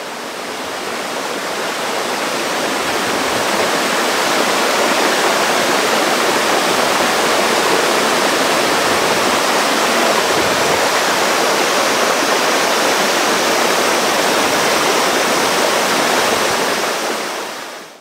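A waterfall about 10 m high pouring into a pool: a steady rushing of falling water. It swells in over the first few seconds and fades out at the very end.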